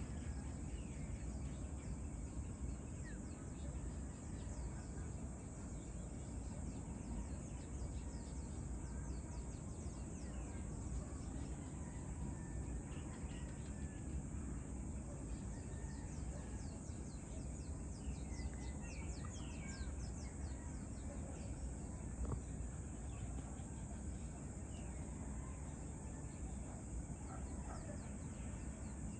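Evening outdoor ambience: insects chirp steadily in a high, pulsing chorus, with scattered short bird calls, a cluster of them about two-thirds of the way through, over a low steady rumble.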